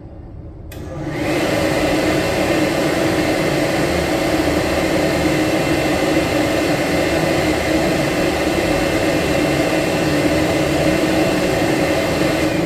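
Public-restroom electric hand dryer switching on about a second in and quickly rising to full speed, then blowing steadily: a loud rush of air with a thin high whine from the motor.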